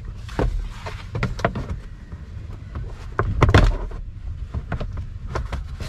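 Plastic glove box being refitted into a Nissan Navara's dashboard: scattered clicks and knocks of plastic parts, the loudest about three and a half seconds in.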